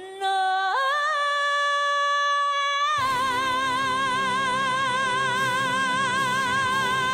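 A female soprano sings alone, sliding up into a high note and holding it with vibrato. About three seconds in, backing music enters and she holds a long high note with wide vibrato.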